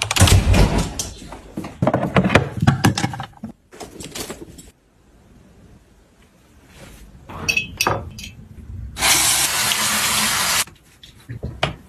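A run of clicks, knocks and rustling, then, about nine seconds in, a bathroom sink faucet running water over hands being washed for under two seconds before stopping suddenly.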